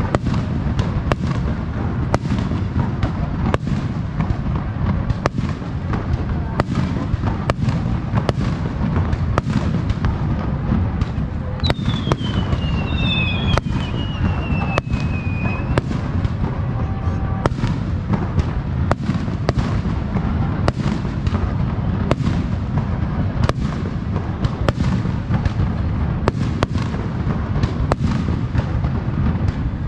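Aerial fireworks shells bursting in quick succession: many sharp bangs over a continuous low rumble. A falling whistle cuts through about twelve seconds in and fades after a few seconds.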